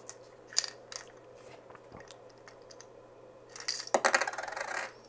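A dime drops out of a slot in a 3D-printed plastic puzzle cube and lands on the tabletop about four seconds in, clattering and rattling for about a second as it settles. A single light click comes about half a second in.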